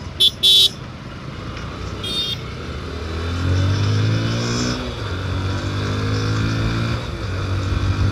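Two short, loud vehicle horn beeps, then a fainter beep about two seconds in. From about three seconds the two-wheeler's engine accelerates, its pitch climbing, dropping back and climbing again a few times, over steady road and wind noise.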